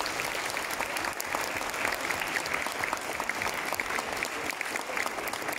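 Audience applauding steadily: a dense crackle of many hands clapping.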